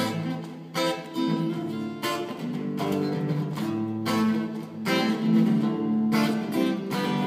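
Acoustic guitar strumming chords, with a fresh strum about once a second over ringing chord notes.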